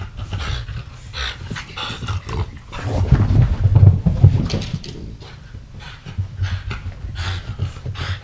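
Pug and French bulldog puppies panting and growling as they play over a toy, in quick repeated breaths, loudest from about three to four and a half seconds in.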